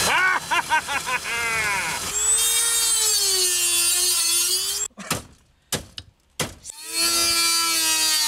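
Handheld electric grinder cutting metal in a car's dashboard radio opening. The motor whine pulses on and off in short bursts, then runs steadily with its pitch sinking under load. It stops for about two seconds with a few clicks, then starts cutting again near the end.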